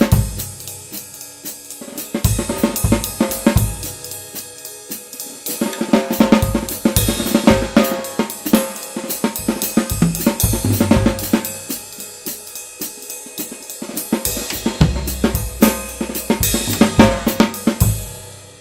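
Tama Swingstar drum kit with Meinl cymbals played continuously, recorded through a Blue Yeti microphone: snare, bass drum, hi-hat and cymbal strikes in a busy beat that swells louder and drops back several times. The playing stops near the end and the kit rings out.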